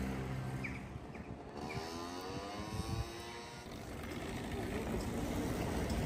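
Street ambience with a motor vehicle passing, its engine note rising and then falling in pitch about two seconds in.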